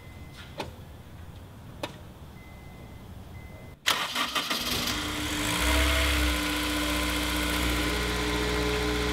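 A couple of faint clicks, then about four seconds in the Honda S2000's four-cylinder engine starts abruptly and settles into a steady idle, its first start on a freshly primed fuel system.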